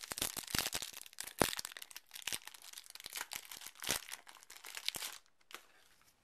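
A foil Yu-Gi-Oh booster pack being torn open and crinkled by hand: a busy crackle of foil with several sharper rips. It stops about five seconds in.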